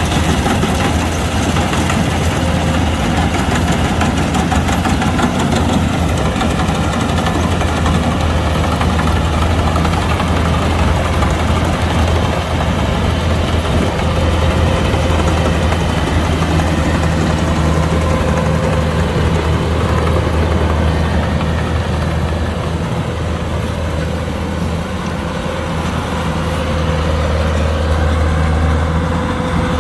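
Kubota combine harvester's diesel engine running at a steady load with a deep, constant drone, easing slightly about three-quarters of the way through.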